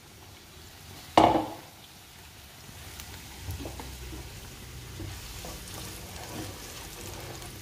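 Diced onion frying gently in oil in a nonstick pan, with a faint sizzle and, from a few seconds in, a wooden spoon stirring and scraping through it. A single sharp knock comes about a second in.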